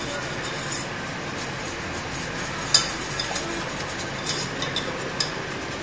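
Wire whisk beating a butter-and-flour roux in a stainless steel saucepan: soft scraping and stirring with scattered light clinks of the whisk against the pan, the sharpest about three seconds in and a few more near the end, over a steady background hiss.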